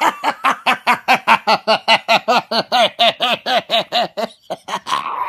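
A man's voice letting out rapid, loud, rhythmic cries, about four or five a second, each rising and falling in pitch, like a manic screaming laugh. It breaks off about four seconds in and picks up again briefly near the end.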